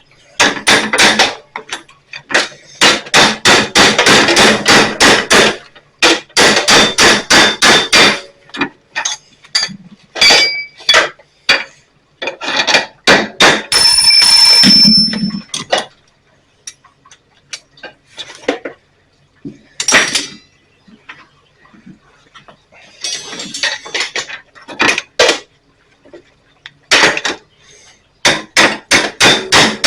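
Hammer driving a steel punch to open up a hole in a steel fence rod held in a vise: runs of rapid metal-on-metal blows, with pauses and scattered single strikes between them. A brief ringing metallic clang comes about halfway through.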